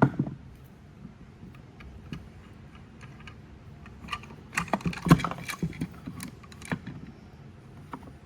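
Scattered sharp metallic clicks and knocks from brake caliper parts and pistons being handled, with a sharp click at the very start and a cluster of knocks about four to seven seconds in.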